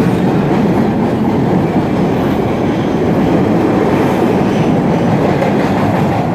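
MBTA Orange Line subway train pulling out of an underground station, its cars running loudly and steadily past the platform until the last car clears the platform near the end.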